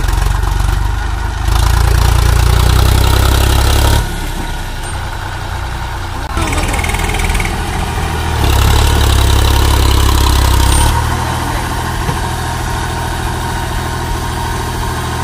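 HMT 3522 tractor's diesel engine running, revved up twice for two or three seconds each time as the tractor is manoeuvred, dropping sharply back to a lower throttle after each.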